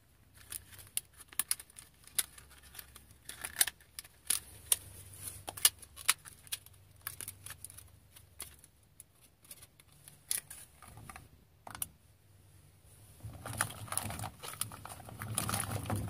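Sharp clicks and taps of hands working a clear plastic soft-bait package and fishing tackle, irregular and several a second. About three seconds before the end it gives way to a denser rustle of handling.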